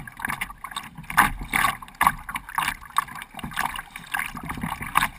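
Choppy water slapping and splashing irregularly against a Jackson Coosa kayak's hull as it moves, a few splashes a second, over a low wind rumble.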